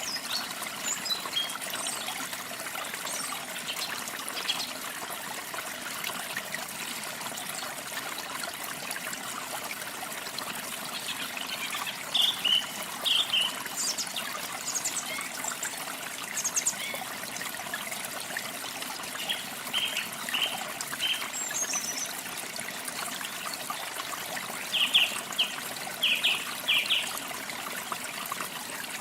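Water trickling steadily in a stream, with small birds chirping in short calls now and then, clearest about twelve seconds in and again near the end.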